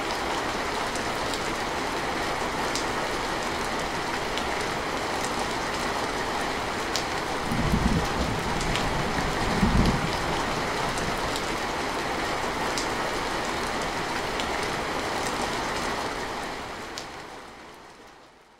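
Heavy rain drumming steadily on a metal roof, with sharp individual drop ticks, and two short low rumbles of thunder about halfway through. The rain fades out near the end.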